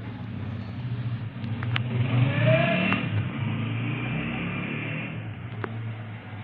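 A motor vehicle's engine running in the background as a steady low hum, louder for about three seconds in the middle, with a few faint clicks.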